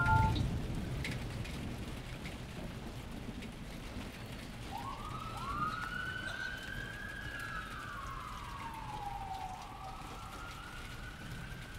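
A siren wailing: a tone rises about five seconds in, holds high, falls slowly and rises again near the end, over a steady hiss like rain. At the very start the last notes of a phone's marimba-style ringtone cut off.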